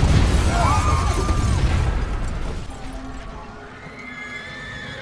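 The rumbling aftermath of a large bomb blast in a film soundtrack, dying away over the first couple of seconds, with a short wavering high tone early on. Sustained score notes come in from about the middle.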